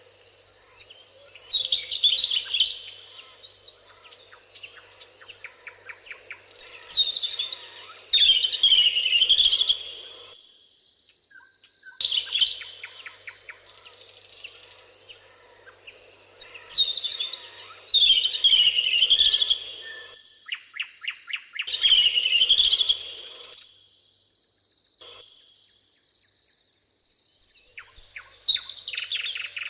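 Songbirds singing in a meadow: loud warbled song phrases of a couple of seconds each, repeating every few seconds with fast trills between them, over a steady thin high tone.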